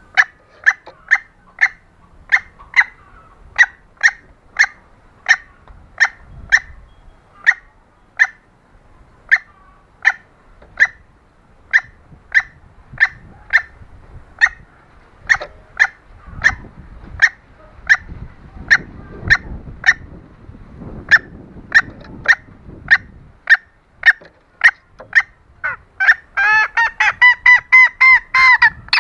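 Female green junglefowl calling to draw a male: a long series of short, sharp clucks about one and a half a second, then, near the end, a quicker run of higher, ringing calls that is the loudest part.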